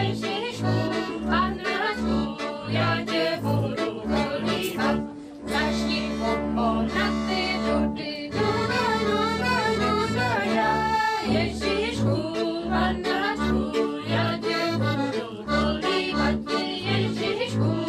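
Folk band playing a lively traditional tune on accordion, clarinet and double bass, the bass keeping a steady alternating beat under the accordion's melody.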